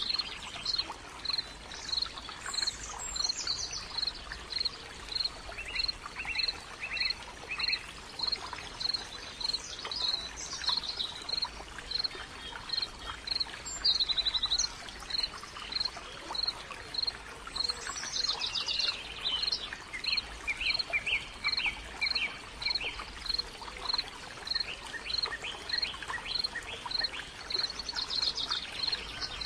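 Wild birdsong: one bird repeats a short high note evenly, a little under twice a second, while other birds add trills and falling calls now and then, over a steady rushing background.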